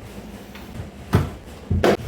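Two knocks of hard objects being handled, one about a second in and a longer, louder clatter near the end, typical of items and shelves being moved while a refrigerator is cleaned out.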